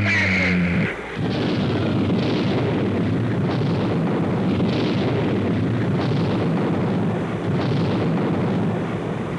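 A low humming tone breaks off about a second in and gives way to a steady rumbling, crackling roar of explosions, as from a bombing or strafing attack.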